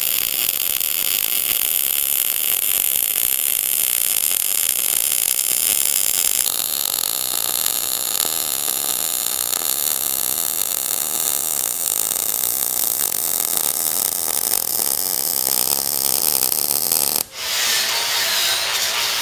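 MIG welding arc, running .035 ER70S-6 wire, sizzling steadily as a seam is laid on steel. It stops about 17 seconds in, and a hand angle grinder starts working the weld near the end.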